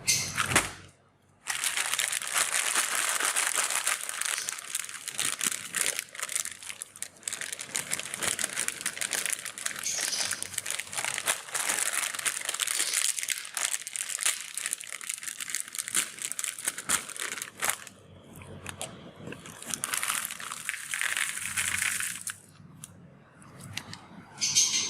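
Wrappers of chocolate candies crinkling as they are handled and unwrapped, almost without a break for most of the time. There is a pause, then another stretch of crinkling and a short burst near the end.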